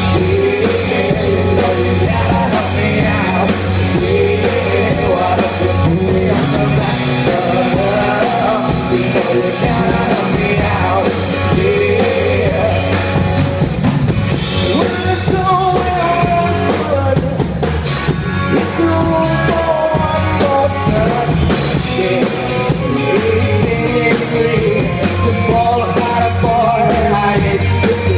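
Live rock band playing: electric guitars, bass and drum kit under a sung lead vocal, loud and steady, with the cymbals cutting through more from about halfway.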